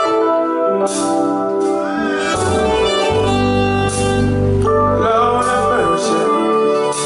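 Live band playing a slow ballad intro: sustained organ-like keyboard chords, with a deep bass line coming in about two and a half seconds in and dropping out near the end.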